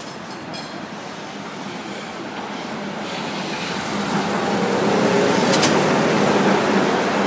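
Street traffic growing louder as a vehicle comes near, with a steady engine hum from about halfway through and one short click near the end.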